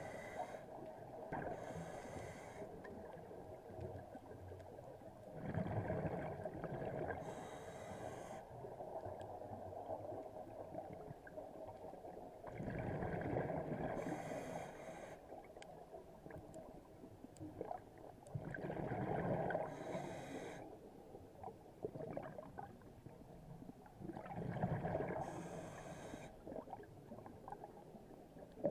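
Scuba diver breathing through a regulator underwater: each breath draws in with a short hiss and is let out as a burst of bubbling exhaust bubbles, about every six seconds.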